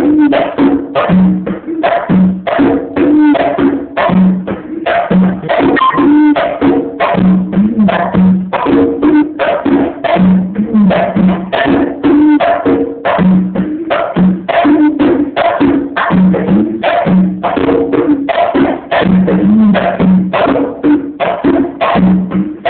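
Go-go style percussion groove: conga drums struck in a fast, steady pattern, several strokes a second, with the low and higher drum tones alternating and other percussion layered in.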